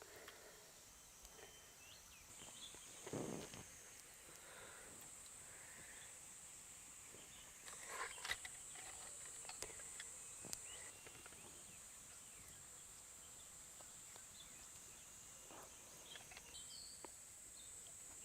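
Insects droning in a steady, high-pitched chorus that swells and fades, over faint scattered clicks and light taps, with one duller knock about three seconds in.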